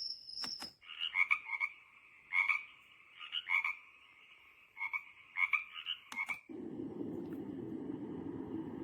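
Momcozy sunrise alarm clock's sound machine playing a recorded frog-croaking nature sound through its small speaker, as a string of short repeated croaks. About six seconds in there is a click, and it changes to a steady low rushing noise.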